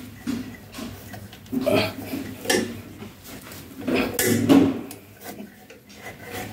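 Metal plumbing fittings under a bathroom basin knocking, clinking and scraping as they are worked by hand. The pop-up drain rod and its linkage are being fitted, with a few separate rattles and knocks.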